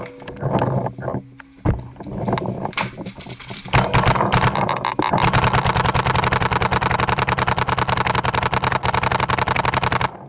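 Paintball markers firing: scattered shots at first, then from about five seconds in a rapid, even stream of shots from a marker on full-auto or ramping fire, with no break.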